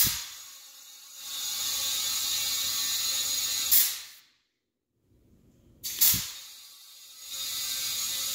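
Compressed air hissing through a digital tire inflator's chuck into a tire in two bursts of about two and a half seconds each. Each burst is marked by sharp clicks as the inflator's lever is worked.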